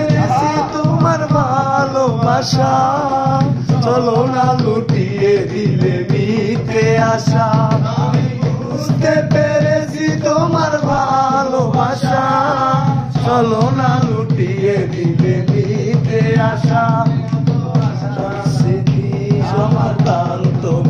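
A song: a solo voice singing in phrases a few seconds long, its pitch bending and wavering, over drum and instrumental accompaniment.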